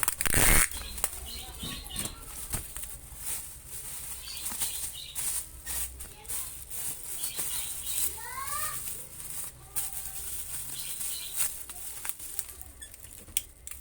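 Plastic packing material being handled, rustling and crinkling with scattered small knocks, loudest in a burst right at the start. A few short rising squeaks come about two-thirds of the way through.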